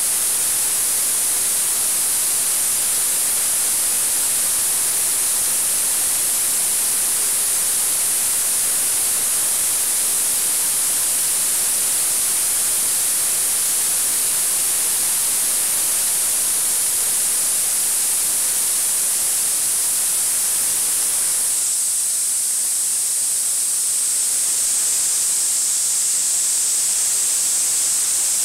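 Ultrasonic cleaning bath running: a steady, high-pitched cavitation hiss as a welded stainless steel part is cleaned of its weld discolouration. About three-quarters of the way through, the hiss drops slightly in pitch.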